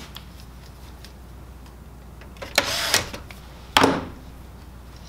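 A cordless electric screwdriver runs for about half a second, driving a black plastic screw into a laser printer's housing, then a sharp knock just before four seconds in as a hard object is set down.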